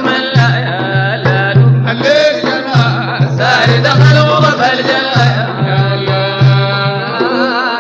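Sudanese madeeh (Sufi praise song): male voices singing over a deep frame drum (tar) beating a steady pulse, with hand claps. It begins to fade near the end.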